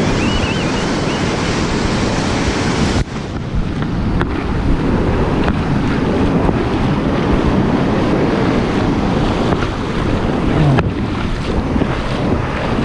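Sea surf washing onto a beach, with strong wind buffeting the microphone. About three seconds in, the high hiss drops away abruptly and the low wind rumble carries on.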